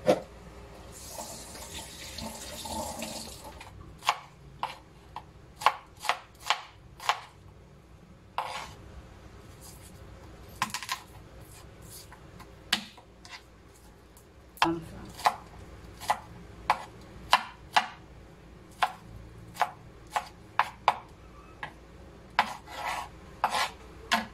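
Water running from a kitchen tap for a couple of seconds, then a kitchen knife chopping red onion and garlic on a wooden cutting board: sharp, separate knocks, one or two a second, with short pauses.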